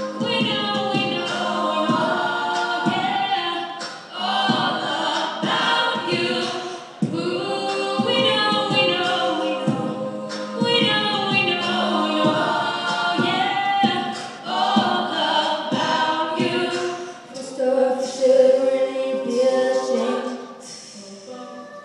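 All-female a cappella group singing, several voice parts at once, with steady held notes underneath and the melody moving above them.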